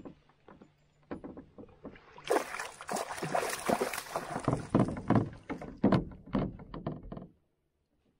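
A small northern pike thrashing and splashing in a landing net at the side of a canoe. A few scattered drips and clicks give way, about two seconds in, to a dense run of splashes that stops abruptly near the end.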